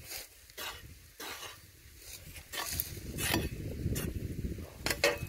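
Hoe blade striking and scraping into dry, hard-packed soil, a string of chops roughly a second apart, as a cassava root is dug out.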